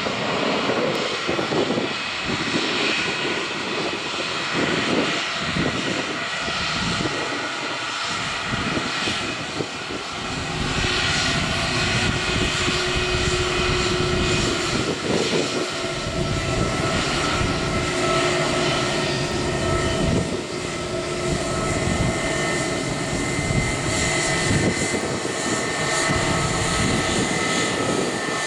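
Airbus A320 jet airliner taxiing past, its twin jet engines at low taxi thrust making a steady rush with a whine; it grows a little louder about ten seconds in as the aircraft draws level.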